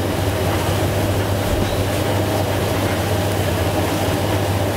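Steady, loud low hum of running machinery with an even background rush, unchanging throughout.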